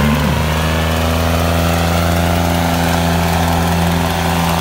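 Diesel engines of a New Holland tractor and a second tractor, chained back to back, running steadily under load as they pull against each other in a tug-of-war. Their drone holds an even pitch and level throughout.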